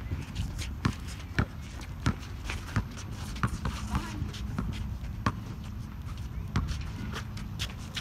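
Basketball bouncing on an outdoor court: about ten sharp thuds at uneven spacing as players dribble, with sneakers shuffling on the court and faint voices.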